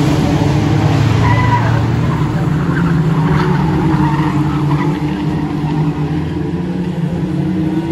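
A pack of small hatchback junior production race cars running together on a short oval, their engines making a steady drone, with brief tyre squeals as they corner.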